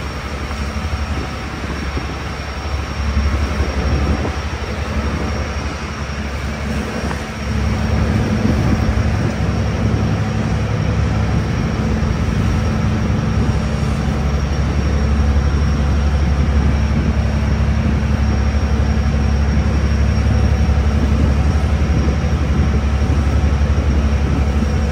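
Car ferry's engines droning steadily with a deep, even hum, growing louder about a third of the way in.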